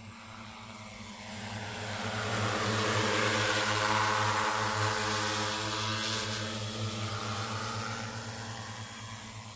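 Multirotor agricultural spraying drone's propellers buzzing in flight. The sound grows louder to a peak a few seconds in, then fades as the drone moves away.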